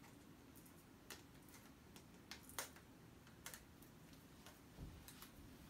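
Faint, scattered clicks from a plastic Blu-ray steelbook case and its wrapping being handled and picked at with a small tool, with a soft low thump about five seconds in.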